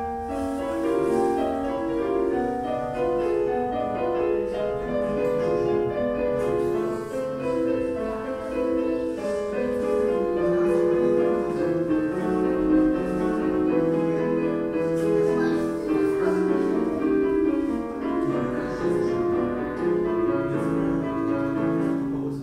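Instrumental piano music: a continuous run of notes, some held, with no break.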